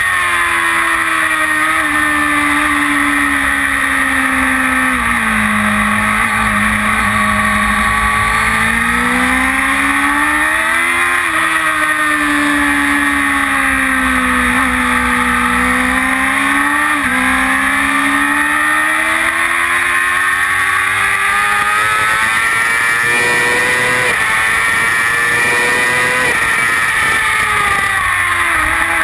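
Kawasaki ZX-6R's inline-four engine running hard on track, heard from a camera on the bike. Its pitch rises and falls through the lap, with sudden drops at about 11 and 17 seconds in as the rider changes gear.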